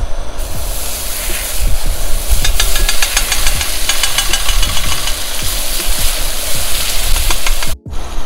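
Butter sizzling and crackling as it melts in a hot pan, the hiss starting about half a second in, over a low steady rumble. The sound drops out briefly near the end.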